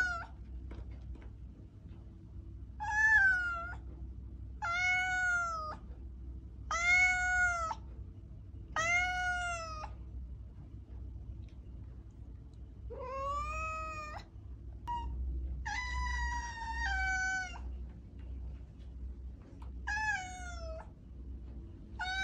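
Domestic cat meowing repeatedly: about seven separate meows of roughly a second each, a couple of seconds apart, over a faint steady low hum.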